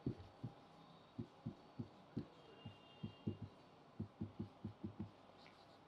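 Marker pen writing on a whiteboard, heard as a faint, irregular run of well over a dozen soft, dull taps as each letter is stroked onto the board.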